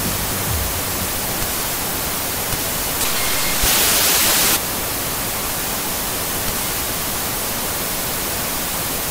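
Analogue television static: a steady hiss, with a brief louder, brighter burst about four seconds in.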